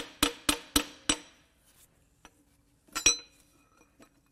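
Sharp metal taps, about four a second, as a piston and connecting rod are tapped out through a cylinder bore of a Subaru FA20 boxer engine. After a pause, one loud metal clink that rings briefly, about three seconds in.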